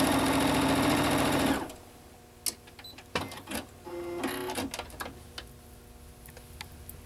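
Electric sewing machine running steadily as it stitches a seam through quilt block pieces, stopping abruptly about a second and a half in. A few scattered clicks and small handling sounds follow.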